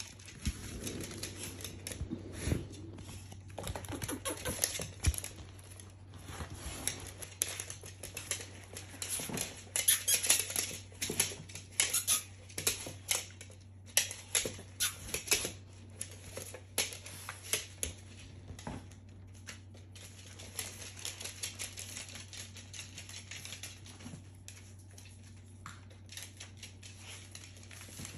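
Irregular clicks, taps and rustles from a hairless terrier puppy moving about and being handled, busiest in the middle stretch, over a low steady hum.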